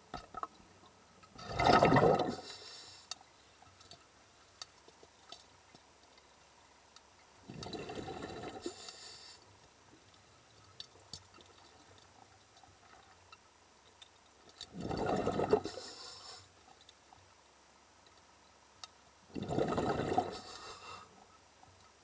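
Underwater bubbling and rushing in four separate bursts, each a second or two long, spaced roughly five to seven seconds apart. Faint scattered ticks lie between the bursts.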